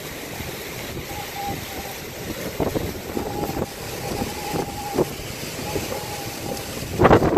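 Hurricane wind gusting and buffeting the microphone with driving rain, an uneven rushing roar. A faint thin whistling tone comes and goes through the middle, and a strong gust blasts the microphone near the end.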